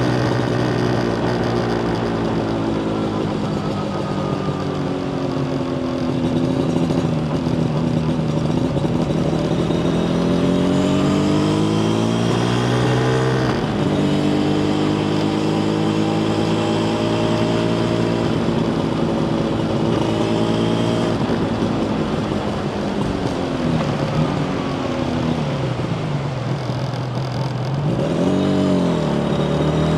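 Yamaha TZR250 two-stroke parallel-twin engine pulling under way, its revs repeatedly climbing and falling through the gears. About halfway through the note drops sharply and picks up again, and near the end it swings down and back up quickly.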